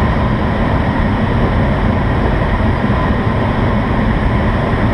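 Steady rush of airflow over the closed canopy and fuselage of an IS-28B2 glider in flight, heard from inside the cockpit as a loud, even noise with a heavy, fluttering low rumble.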